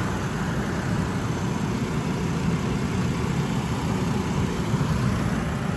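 2003 GMC Envoy engine idling steadily, heard close up over the open engine bay, with engine and fan noise.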